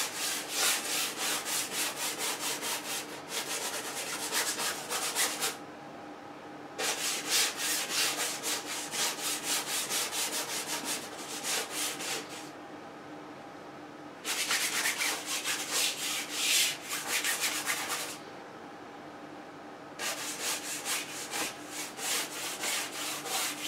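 A wide bristle brush scrubbing oil paint onto a stretched canvas in quick back-and-forth strokes, a dry scratchy rasp that comes in four runs with short pauses between them.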